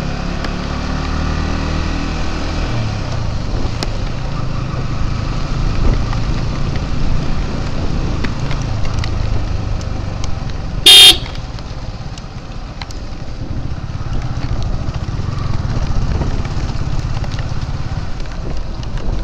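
Sport motorcycle engine running at low road speed, its note falling over the first three seconds. About eleven seconds in, a single short horn toot, the loudest sound.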